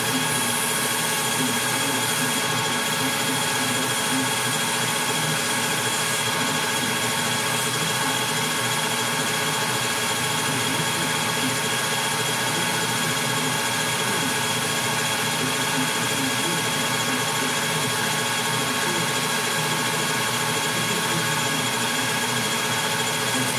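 Metal lathe running steadily at speed, its spindle and gears giving an even whine of several steady tones. A faint high hiss in the first few seconds comes as a hand tool is held against the spinning barrel's muzzle.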